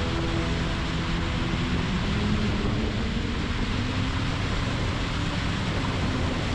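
Outboard motor running steadily at speed, with a low engine tone beneath a loud, even rush of water and wind.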